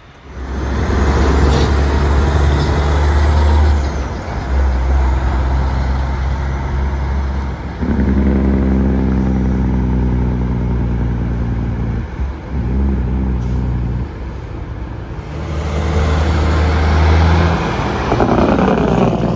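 Semi-truck diesel engines on compression (Jake) brakes, a loud, deep, steady exhaust bark as trucks pass close by. The sound dips briefly twice around the middle and swells again near the end as a red Kenworth with straight stacks goes past.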